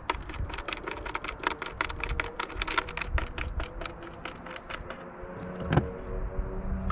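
Quick, irregular hard-plastic clicking as a Garmin Striker 7SV fish finder and its tilt-bracket knob are turned and handled. One louder knock comes near the end as the unit is pushed onto its mount.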